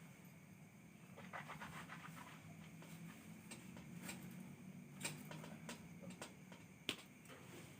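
Faint handling noise: scattered sharp clicks and soft crackling over a low steady hum.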